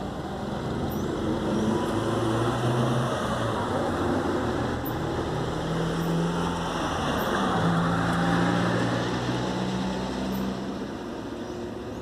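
A motor vehicle's engine hum and road noise, swelling over several seconds and then fading again.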